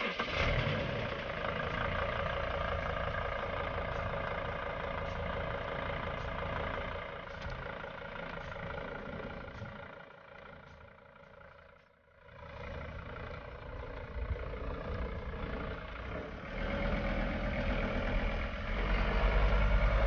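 2004 Mercedes Sprinter van's diesel engine idling steadily. It drops away briefly about twelve seconds in, then comes back with a louder, deeper rumble near the end.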